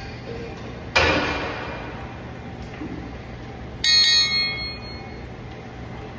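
Metal gym equipment sounding as a cable crossover machine is loaded. A sharp metal clank comes about a second in, then a loud ringing metallic clang near four seconds in, both over a steady low hum.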